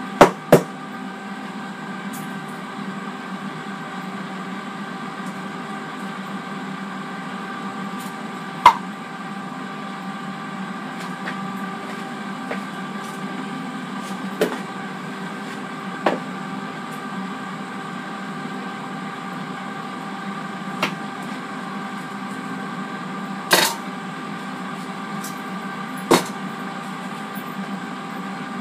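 Air fryer running with a steady hum of several fixed pitches, its fan going throughout. About eight sharp knocks and clicks stand out over it, the loudest a little after the start and about nine seconds in.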